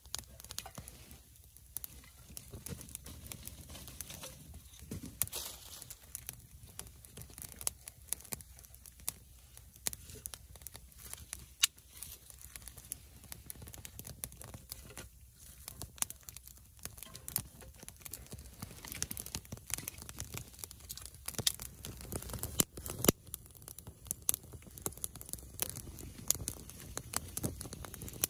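Small kindling fire crackling in a titanium folding box stove, with many sharp irregular pops and snaps that grow denser and louder in the last few seconds as the flames take hold, and sticks knocking as they are pushed in by hand.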